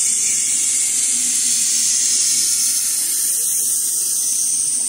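CNC V-grooving machine cutting a groove along a stainless steel sheet: a steady, high-pitched hissing scrape from the cutter that starts suddenly and holds evenly.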